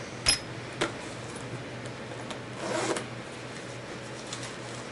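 Handling in a leather vest's zippered pockets: two sharp clicks near the start, then a short zipper pull between two and a half and three seconds in, with a few faint ticks after it.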